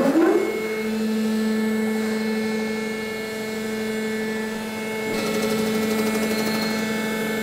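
Surface-grinding machine used as a deck mill, with a CBN cutter, winding up with a rising whine and then running at a steady hum while decking an aluminium (Alusil) V8 engine block. About five seconds in, a higher, rougher layer joins the hum.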